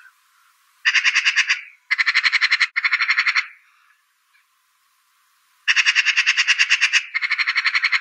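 Eurasian magpie chattering: rapid rattling calls of about ten notes a second, in five bursts, three in the first half and two near the end.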